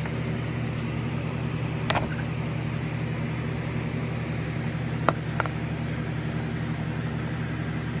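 Sharp metallic clicks, about 2, 5 and 5.5 seconds in, as a tool works at the retaining pin of a car's outside door handle, over a steady low machine hum.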